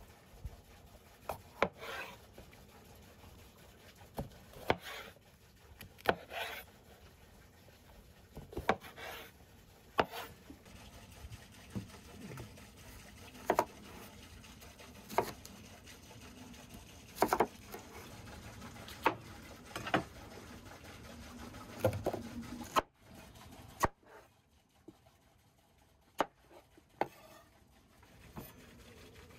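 Large kitchen knife cutting bell peppers and red onions on a wooden cutting board: single sharp knocks of the blade on the board every second or two, with the rub of the knife through the vegetables.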